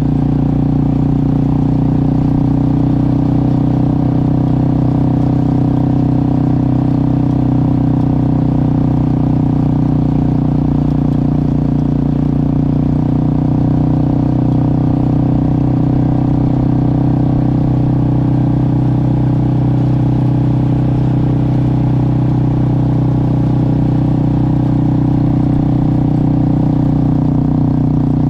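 Motorcycle engine running at a steady, unchanging speed while under way.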